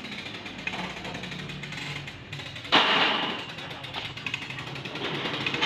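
Hand-pulled chain hoist (chain block) ratcheting as it slowly lifts a steel roof truss, with one sudden loud bang about two and a half seconds in.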